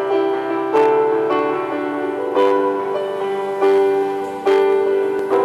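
Electronic keyboard being played by hand: slow chords and melody notes, a new note or chord struck about once a second and held.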